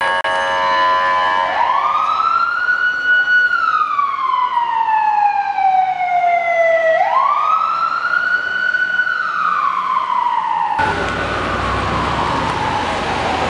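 Emergency vehicle siren wailing, rising and falling slowly twice. About eleven seconds in, a louder steady street traffic noise takes over and the siren sinks beneath it.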